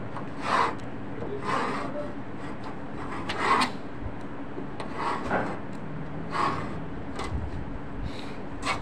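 Hand knife cutting through leather: short rasping strokes, about one a second.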